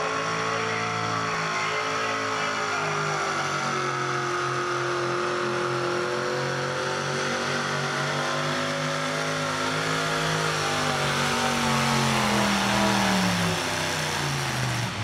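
Mini two-wheel-drive pulling truck, a Chevrolet S-10, running its engine at high revs under full load as it drags the pulling sled. The pitch wavers, then falls away over the last few seconds as the truck bogs down and slows.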